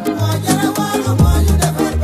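Music with a steady beat and a deep bass line.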